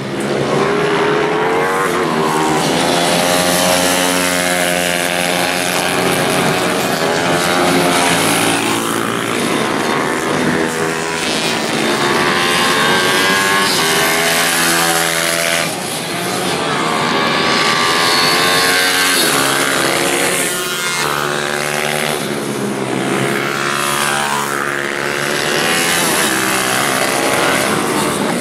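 Several racing pitbikes and Ohvale minibikes lapping past, their small single-cylinder four-stroke engines revving hard in overlapping notes that repeatedly climb and drop back.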